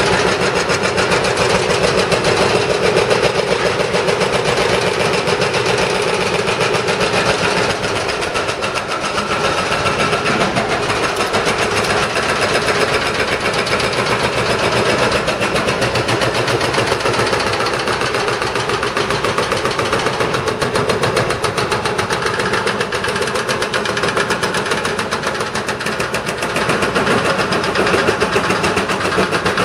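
Hydraulic breaker on a CAT wheeled excavator hammering up the concrete of a streetcar track bed: a continuous rapid pounding over the excavator's diesel engine.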